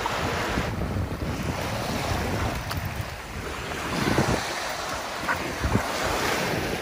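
Small waves lapping and breaking on a sandy beach, with wind buffeting the microphone in gusts.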